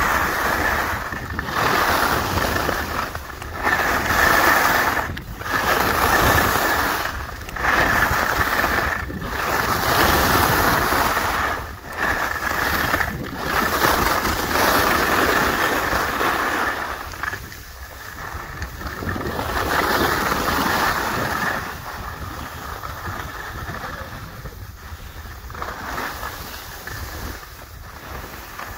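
Edges scraping and hissing over firm, groomed snow in a rhythmic series of turns, swelling with each turn about every two seconds, then in longer, gentler swells and a little quieter later on. Wind rushes over the microphone throughout.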